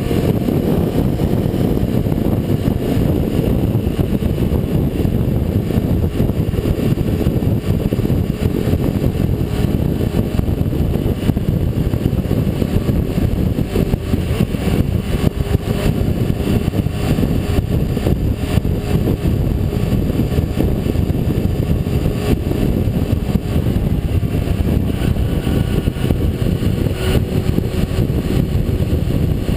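Honda CBR600F4i's inline-four engine running steadily at highway speed, mixed with a steady rush of wind and road noise.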